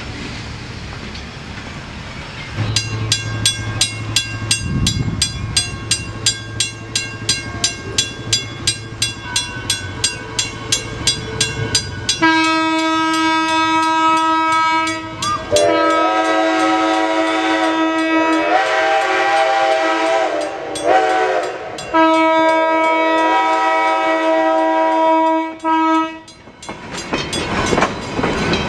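A grade-crossing signal bell starts ringing a few seconds in, about four strikes a second. Then Pennsylvania Railroad 643's Reading six-chime steam whistle blows the crossing signal, four blasts of one full chord: long, long, short, long. Near the end the train's wheels clatter past over the rails.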